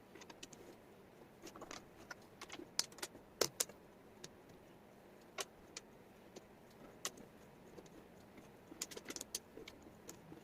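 Small wooden jigsaw puzzle pieces clicking and clacking as they are handled and fitted, in irregular clusters of light taps, loudest a few seconds in and again near the end.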